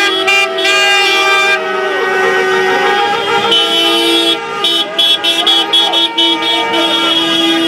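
Many car horns honking together in celebration: several long, held blasts at different pitches overlapping, with short repeated toots breaking in during the second half. Voices of a crowd run underneath.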